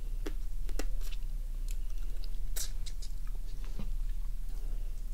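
Eating raw cured crab: mouth sounds of biting and sucking the meat out of pieces of crab shell, with irregular sharp clicks and crackles of shell, the loudest about two and a half seconds in. A steady low hum runs underneath.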